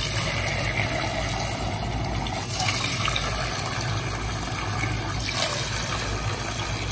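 A stream of water from a pipe pours and splashes into steel bowls, moved from one bowl to the next. A steady low hum runs underneath.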